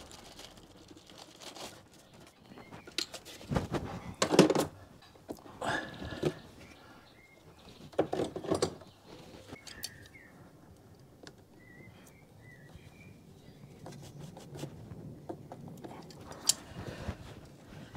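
Hands refitting rubber breather hoses and hose clips on a car engine that is not running: scattered clicks, knocks and rubbing of rubber and plastic, with a sharp click near the end as pliers work a hose clip. A few faint bird chirps in the middle.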